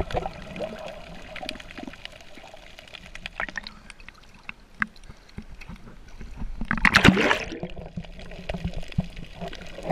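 Water sloshing and trickling with many small splashes, and one louder rush of water about seven seconds in.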